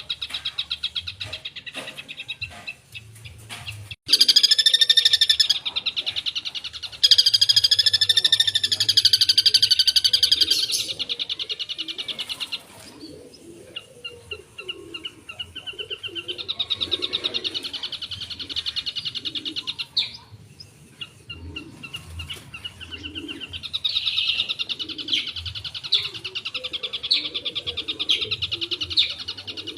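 Long-tailed shrike (cendet) singing a song full of imitations of other birds' calls: two loud, rapid trilling phrases that waver in pitch, then quieter fast chattering phrases.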